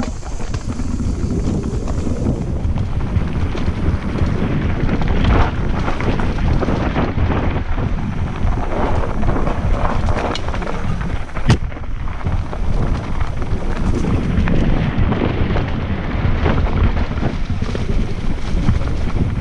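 Mountain bike descending a rocky dirt singletrack, heard close up through an action camera: a continuous rumble of tyres on stones and wind on the microphone, full of small rattles and knocks, with one sharp knock a little past halfway.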